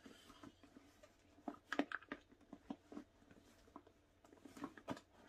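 Light rustling and small knocks of a handbag and its contents being handled as a plastic hand-sanitizer bottle is worked into the bag upright. There are scattered short clicks, with a cluster about one and a half seconds in and another near the end.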